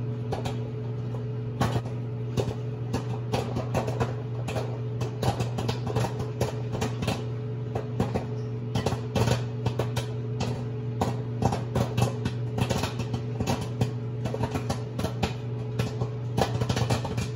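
Microwave oven running with a steady hum while a bag of popcorn pops inside: sharp, irregular pops that come faster and thicker toward the end, as the kernels reach full popping.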